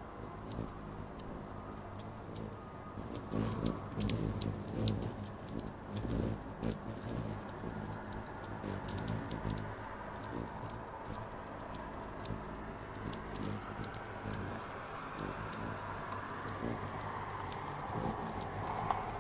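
Anna's hummingbirds calling at a feeder: many short, sharp, high chip notes, irregular and often in quick runs, thickest a few seconds in, over a low steady hum.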